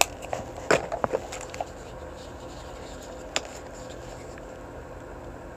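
A few light clicks and taps from handling a plastic paint tube and a wooden paint palette: several in the first second or so, one more a little past three seconds in, over low room noise with a faint steady hum.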